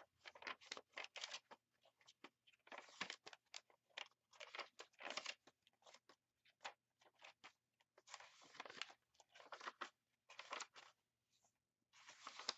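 Faint, irregular rustling and crinkling of paper as the collaged paper pages of a handmade junk journal are handled and flipped through.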